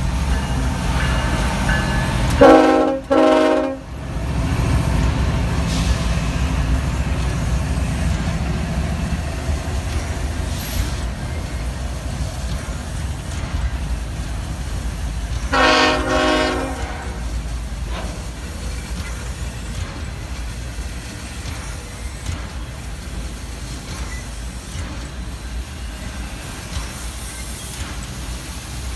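Freight train rolling past with a steady low rumble of wheels on rail that slowly fades. A diesel locomotive's multi-chime air horn sounds two short blasts about three seconds in and one more blast around sixteen seconds in.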